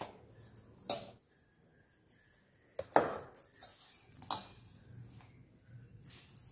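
Sharp clinks and knocks of steel bowls and glass bangles, about one a second with the loudest about three seconds in, as wheat flour and banana-jaggery puree are mixed by hand in a steel bowl.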